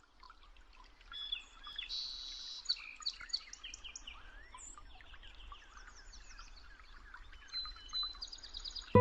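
Several songbirds chirping and calling, many short high notes overlapping, with a quick run of evenly repeated notes near the end.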